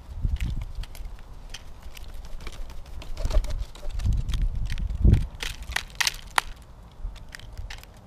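Common starling pecking at dried mealworms and seed on a feeder tray close to the microphone: a scatter of sharp taps and crunches, with a few low thumps.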